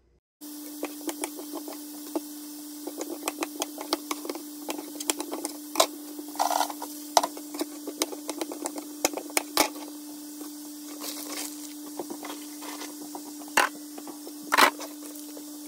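Knife chopping kielbasa on a plastic cutting board: irregular sharp taps, a few louder knocks among them, over a steady low hum.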